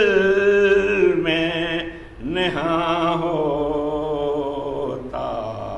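An unaccompanied man's voice chanting an Urdu soz (mourning elegy), drawing out long wavering notes with no words. There is a short break about two seconds in, and the voice slides up into the next held note.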